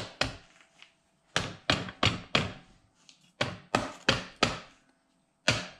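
Sharp taps and knocks on clamped aluminium manifold parts as they are knocked into line: two near the start, then two quick runs of four, about three a second, and one more near the end.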